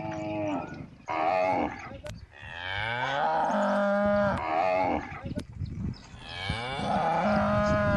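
Cattle mooing: two short calls, then two long, drawn-out moos, each rising in pitch and then holding steady.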